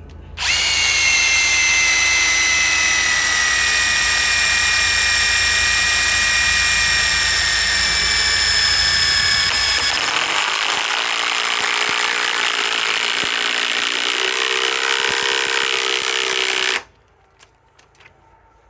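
Ryobi PSBIW25 cordless compact impact wrench running under load, driving a lag bolt into wood on a nearly drained battery (down to one bar). Its whine runs for about sixteen seconds, slowly sinking in pitch, changes character about ten seconds in, then cuts off suddenly.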